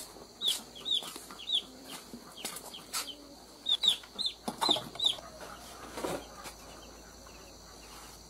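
Chickens clucking, with repeated short, high, falling peeps in quick runs over the first half. Sharp knocks of a kitchen knife cutting bitter melon on a wooden chopping block.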